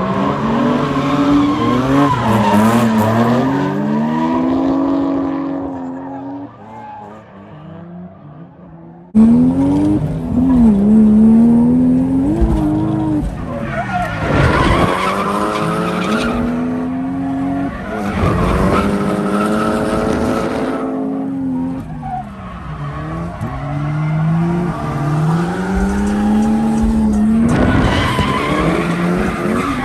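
Lexus SC300's turbocharged 1JZ-GTE inline-six revving up and down repeatedly while drifting, with tyres squealing and skidding. The sound drops about six seconds in, then comes back suddenly and louder about nine seconds in.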